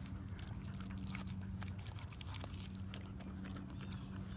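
A dog chewing and biting into a slice of watermelon: a run of irregular wet crunching clicks as it bites the flesh and rind. A steady low hum runs underneath.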